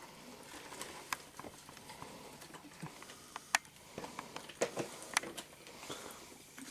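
Scattered sharp clicks and short crackles from a plastic water bottle being opened and drunk from, with soft chewing and swallowing of a mouthful of dry coffee powder and sugar.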